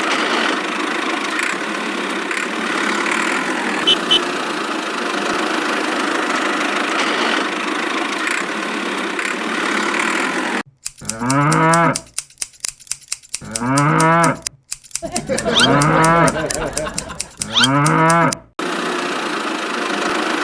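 A steady mechanical running noise, like a small engine or motor. Then, about halfway through, a cow moos about four times, each call rising and then falling in pitch. The moos cut in and out abruptly, like an added sound effect.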